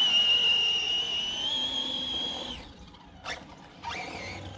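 Redcat Kaiju EXT RC monster truck's brushless electric motor whining at a steady high pitch at full throttle, then cutting off about two and a half seconds in. A short sharp sound follows, then a brief second burst of motor whine near the end.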